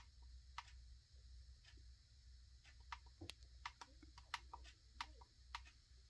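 Faint plastic clicks of the buttons on a Smartro SC91 projection alarm clock being pressed, about a dozen irregular presses that come thicker in the middle.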